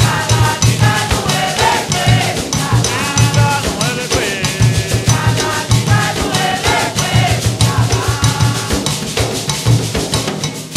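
Afro-Brazilian Nagô/Xambá ritual music: drums played in a fast, even rhythm with a metal bell, under group singing.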